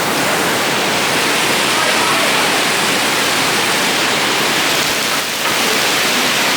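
Heavy rain pouring down in a steady, loud rush of water.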